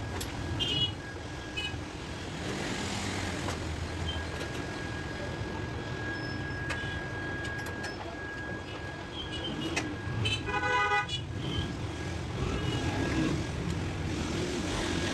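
Steady background rumble like street traffic, with a short horn-like honk about ten seconds in.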